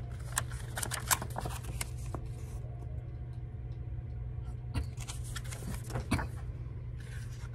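Scattered soft clicks and rustles of a paperback book being handled and held up in the hands, over a steady low hum.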